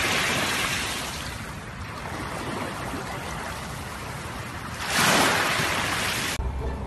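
Small sea waves washing onto a pebble shore, a steady wash with a louder surge about five seconds in. Near the end it cuts off abruptly to a low hum.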